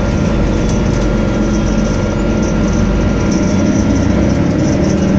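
Volvo DH12D 12.1-litre six-cylinder diesel of a B12BLE bus running loud and steady, heard from inside the cabin near the rear.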